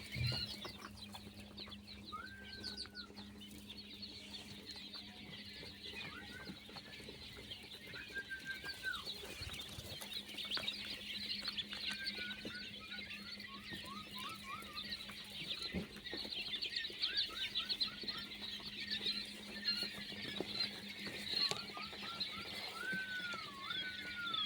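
A flock of quail calling: many high-pitched chirps and peeps all through, with separate lower whistled calls that rise and fall, more of them near the end. A steady low hum runs underneath.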